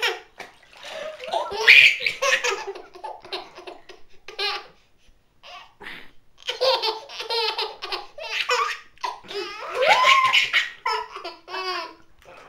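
A baby laughing in repeated bursts of giggles and high squeals, with a short pause about five seconds in.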